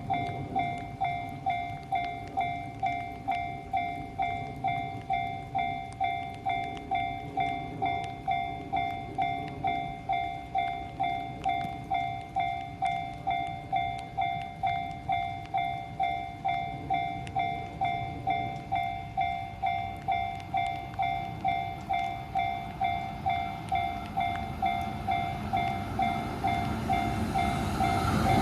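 Japanese railway level crossing's electronic warning bell ringing steadily, a little under two dings a second, the sign that the crossing is closed for an approaching train. A low rumble runs underneath and swells near the end as a train draws near.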